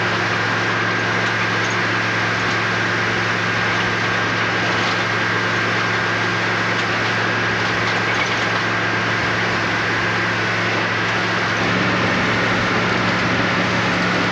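Steady engine and road drone heard inside the cabin of a moving tour vehicle, with a constant low hum.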